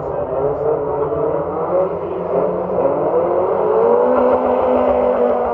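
Autograss hatchback race car engines revving hard as the cars pass close by. The engine note rises and is loudest about four seconds in.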